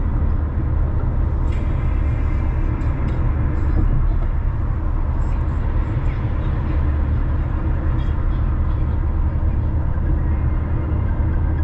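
A car driving, its engine and tyre noise making a steady low rumble.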